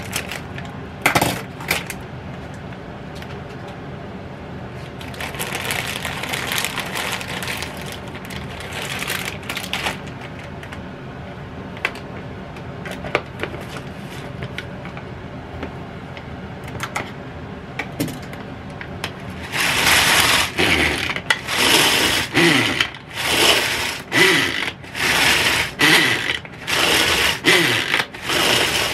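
Hand-operated onion chopper being worked in a quick, steady run of strokes, each a burst of blade-and-mechanism clatter, mincing vegetables. The strokes start about two-thirds of the way through; before that there are only scattered clicks and handling rustles.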